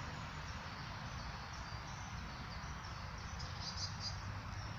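Steady background hiss with short, high-pitched chirps that come more often towards the end, like insects calling outdoors.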